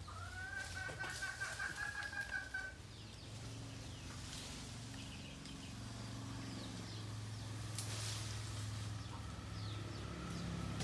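A rooster crows once near the start: one long call of about two and a half seconds, rising and then held. After it comes a low steady hum, with faint high chirps.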